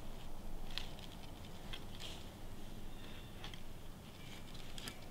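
Dry fallen leaves rustling and crunching in a few scattered, irregular steps: deer walking through the leaf litter.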